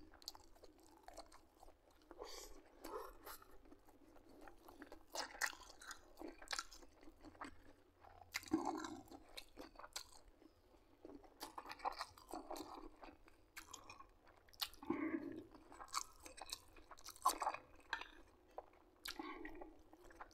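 A person eating close to the microphone: quiet chewing with frequent short mouth smacks and clicks.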